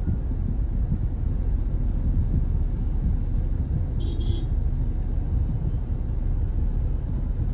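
Steady low rumble of a car being driven in slow traffic, heard from inside the car, with a brief high-pitched chirp about four seconds in.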